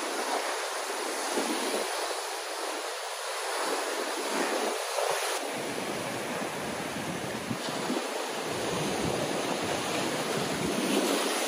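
Ocean swell breaking against a rock platform and white water washing over the rocks: a steady rush of surf.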